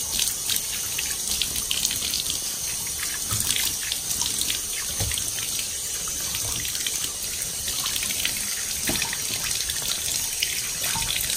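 Water running steadily from a bathtub tap and splashing irregularly over a plastic headlight lens as it is rinsed by hand after wet sanding.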